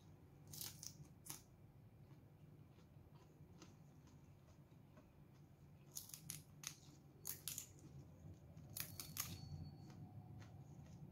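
Faint, crisp crunching and mouth clicks of raw leafy greens being bitten and chewed, in three short bursts.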